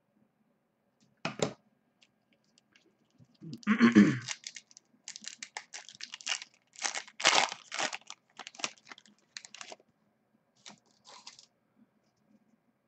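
A foil trading-card pack is torn open and its wrapper crinkled. The sound comes as irregular crackly bursts over several seconds, and the loudest tear is about four seconds in.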